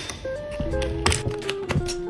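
Background music with held melodic notes, with a few sharp, irregular clicks and taps over it.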